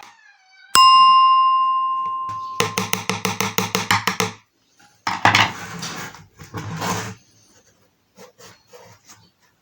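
A single bell-like ding that rings out and fades over about two seconds. It is followed by a quick, even run of pitched taps and two short swishes, which sound like background music or sound effects.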